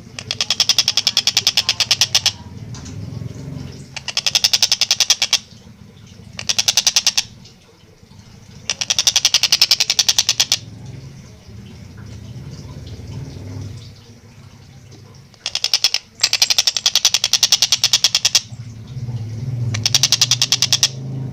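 Collared kingfisher (tengkek buto) calling in bursts of very fast, sharp 'kek-kek-kek' notes, about seven bursts of one to two seconds each with short pauses between. A steady low hum lies underneath.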